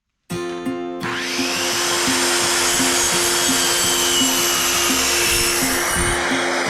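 A power tool running loudly and steadily for about six seconds, over background music with a regular beat that is heard alone at the start and end.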